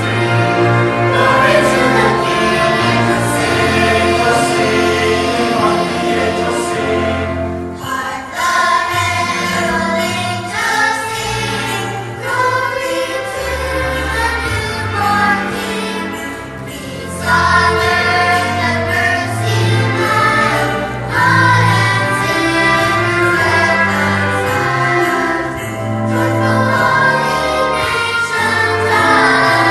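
Choir singing with instrumental accompaniment over held bass notes that change every second or two.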